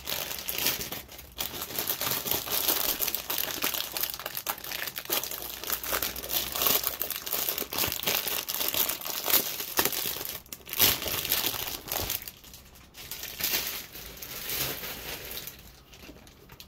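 Packaging crinkling and crumpling in quick irregular bursts as a sealed trading-card box is unwrapped, dying down over the last few seconds.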